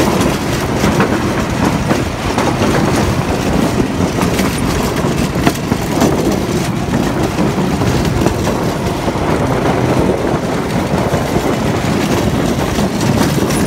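Go-kart running along a wooden plank track: a steady, loud motor and wheel rumble with a fast, irregular clatter as the tyres run over the boards.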